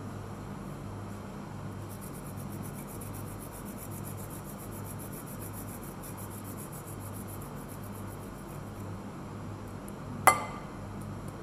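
Steady low hum in the background, then a little after ten seconds in a single sharp knock as a red plastic spatula is tapped against a glass mixing bowl.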